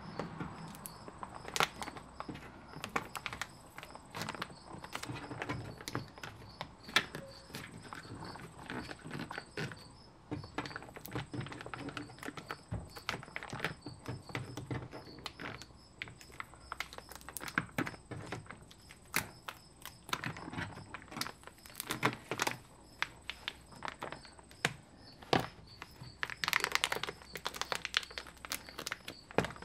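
Plastic and rubber moisture barrier being peeled off a car door's inner frame, pulling free of its sticky adhesive: irregular crackling and sharp clicks of the sheet coming away, with a denser run of crackling near the end.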